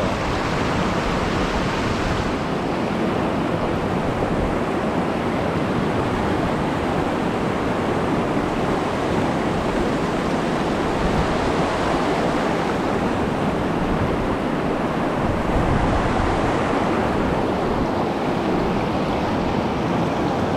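Steady rush of a mountain stream's water tumbling through a plunge pool, an even noise with no break.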